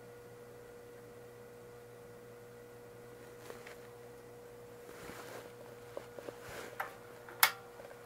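Faint steady electrical hum, a single mid-pitched tone from the variac and isolation transformer powering the lamp. In the second half come light handling rustles from the clip leads and a few sharp clicks, the loudest a little before the end.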